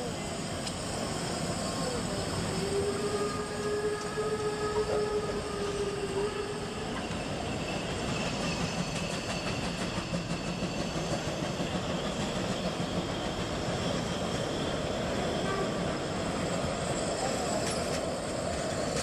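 Coaches of the Rasender Roland narrow-gauge steam railway rolling slowly past on the rails, a steady running noise. A few seconds in, a single held tone sounds for about four seconds.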